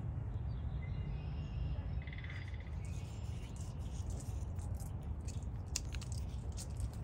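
Steady low outdoor rumble, with a short rapid trill about two seconds in. From about three seconds on come small sharp clicks and rustles of a red squirrel moving through dry leaf litter.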